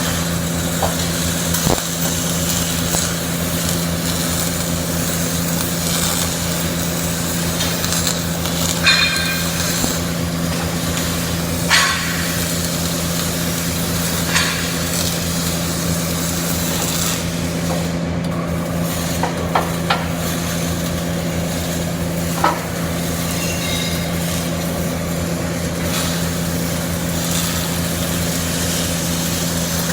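CO2 (MIG) arc welding: an even sizzling crackle from the arc over a steady machine hum, with a few sharper cracks and pops scattered through.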